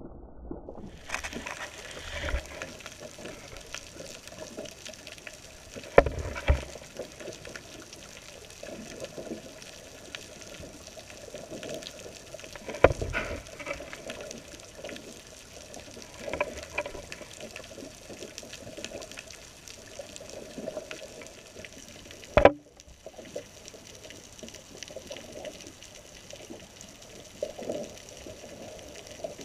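Muffled underwater hiss picked up by a GoPro in its waterproof housing on the seabed, broken by a few sharp knocks, the loudest about twenty-two seconds in.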